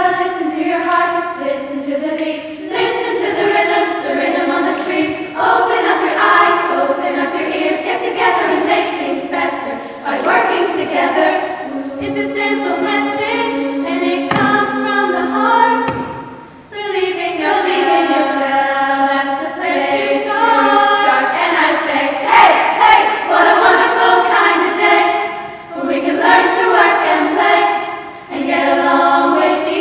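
Girls' school choir singing a cappella in several parts, in phrases with brief pauses about halfway through and near the end.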